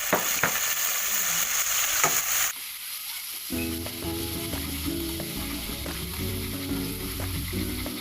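Marinated chicken steak sizzling in a frying pan, with a few sharp clicks of a utensil against the pan. About two and a half seconds in, the sound cuts abruptly to a quieter sizzle under background music.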